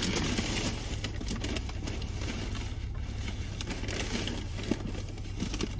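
People eating fast food in a car: chewing, with paper wrappers and cardboard food boxes rustling and clicking, and one sharper tap about three-quarters of the way through. A steady low hum runs underneath.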